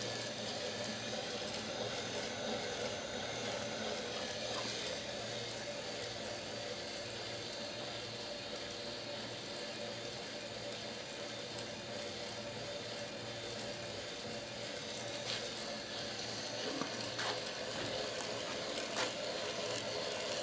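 Homemade wooden gravity-lever rotary rig running: a steady mechanical hum with an even noisy running sound, and a few sharp clicks in the last few seconds.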